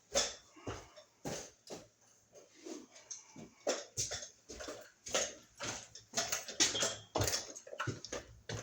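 Irregular small clicks, taps and scrapes of hands twisting stiff electrical wires together in a wall outlet box, several a second and uneven in loudness.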